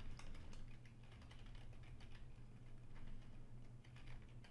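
Faint typing on a computer keyboard: quick, uneven keystrokes over a low steady hum.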